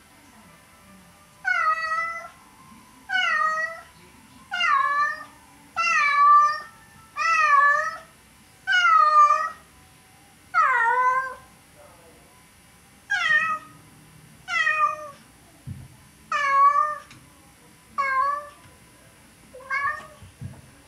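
Domestic cats meowing over and over, about a dozen drawn-out meows roughly a second and a half apart, each rising and falling in pitch, calling for their owner. Two soft thumps come in the second half.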